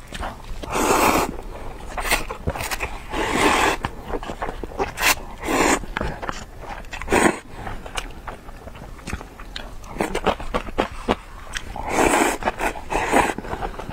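Close-miked eating of noodles: chewing with wet mouth clicks, broken four times by louder noisy swells of about half a second each, with the last near the end.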